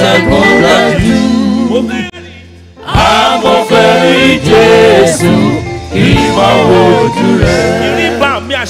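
Live gospel praise singing: several singers on microphones with a band including bass guitar. The music drops briefly about two seconds in, then comes back in full.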